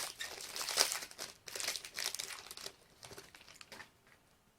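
A trading-card pack wrapper crinkling as it is torn open and handled, in a run of irregular crackles that die away about four seconds in.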